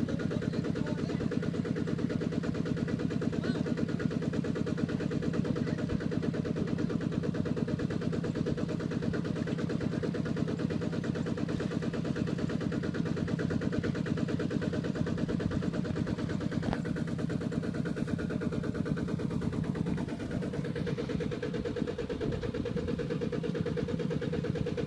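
Two-wheel walking tractor's single-cylinder diesel engine running steadily with a fast, even thudding beat as it drags its trailer through deep paddy mud.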